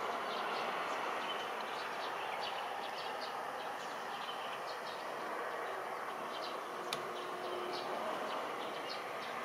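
Steady outdoor background noise with many short, high chirps scattered through it and a single sharp click about seven seconds in.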